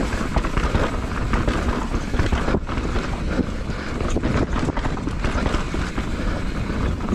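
Mountain bike riding fast down a dirt forest trail: wind buffeting the action camera's microphone over the rumble of tyres on dirt, with many short clicks and knocks as the bike rattles over bumps.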